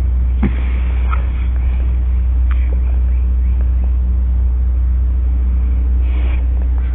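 A steady low rumble with a constant hum over it, and a few faint clicks.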